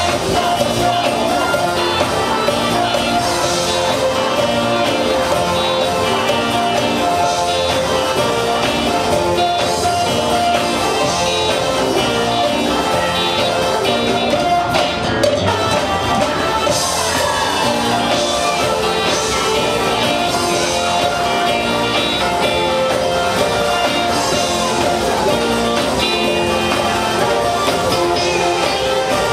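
Live gospel band playing: electric guitar, bass guitar, keyboards and drum kit.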